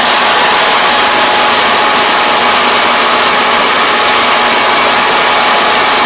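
Kubota ER470 combine harvester running steadily, a loud, even mechanical din with a faint steady whine.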